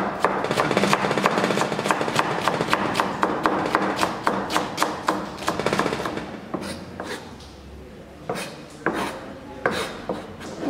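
Chef's knife rapidly shredding cabbage on a plastic cutting board: a fast, even run of blade taps against the board that thins out about six seconds in to a few separate knocks.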